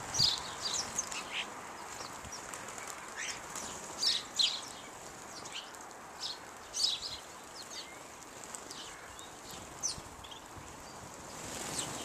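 House sparrows chirping in short, sharp notes, bunched in quick clusters and thinning out later, with wing flutters as birds fly to and from a seed feeder and a louder whir of wings near the end as several take off.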